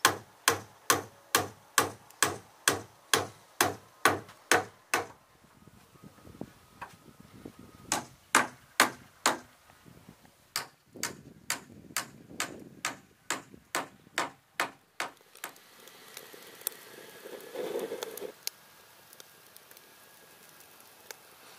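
Hammer driving nails into wooden roof framing: sharp, even blows about two and a half a second, in a long run and then two shorter runs with pauses between.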